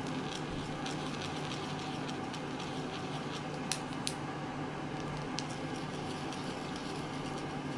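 Steady low hum with a fan-like hiss, and over it faint ticks and scratches of a felt-tip marker tip dabbing on folded paper as eyes are dotted in. Two sharper clicks come a little before the middle.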